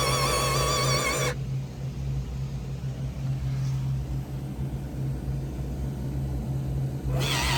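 Radio-controlled model car's electric drive whining, its pitch wavering, in a burst that stops a little over a second in. It starts again near the end, sagging in pitch. A steady low hum lies underneath throughout.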